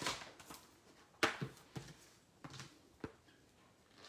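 Light knocks and clicks of a clear acrylic stamp block and an ink pad being picked up and set down on a craft mat, about five short taps, the sharpest a little over a second in.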